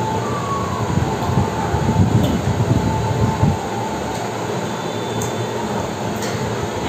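Steady rumbling background noise with a faint constant hum.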